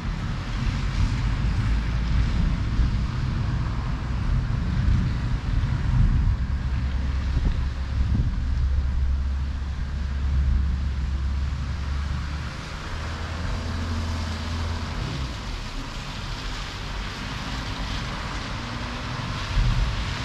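Night thunderstorm: a steady hiss of rain and wind over a deep, uneven rumbling that swells about eight seconds in and eases after about twelve seconds.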